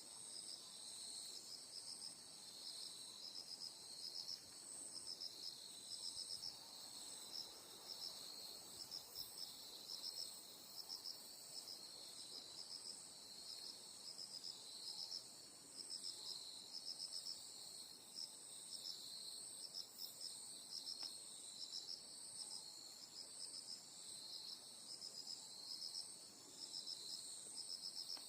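Night insects chirping steadily. A continuous high trill runs under short runs of quick, pulsed chirps that repeat throughout.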